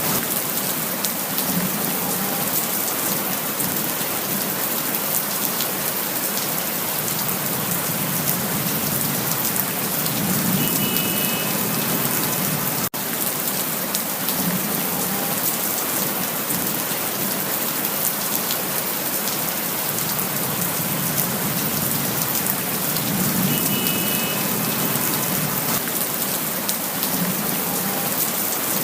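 Steady rain falling, an even hiss of many drops striking surfaces, with an instant's dropout about 13 seconds in.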